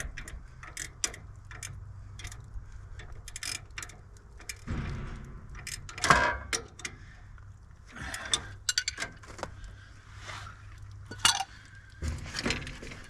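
Metal hand tools clicking and clinking while working on a circulator pump's fittings, with ratchet-like clicks and a louder knock about six seconds in. A low steady hum runs underneath.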